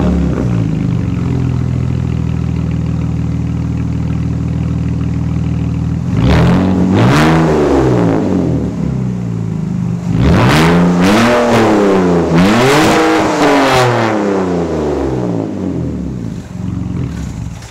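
BMW E46 exhaust, straight-piped with a single catalytic converter left in, idling steadily. The engine is revved once about six seconds in, then twice more in quick succession between about ten and fourteen seconds, dropping back to idle each time.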